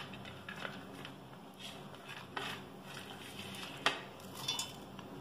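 Scattered light clicks and taps as garlic and onion pieces are picked off a ceramic plate and dropped into a stainless-steel mixer jar. The sharpest tap comes about four seconds in.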